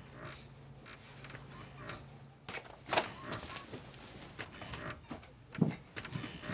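A faint steady high tone over quiet room tone, broken by one sharp knock about three seconds in and a few softer thuds near the end.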